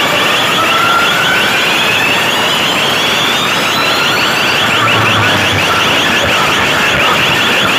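Electronic siren-like alarm effect played loud through a DJ sound system's speaker stacks. Rapid pulsing tones run under pitch sweeps that rise slowly.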